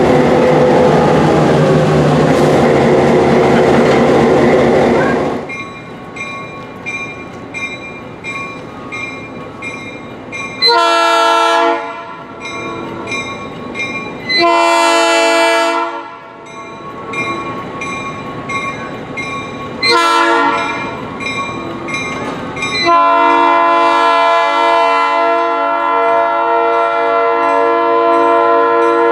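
EMD SW8 switcher locomotive running loud right alongside, its eight-cylinder 567 diesel and running gear filling the first five seconds. Then the locomotive bell rings steadily as it approaches, and its multi-note air horn sounds long, long, short, long, the standard grade-crossing signal, with the last blast held about six seconds.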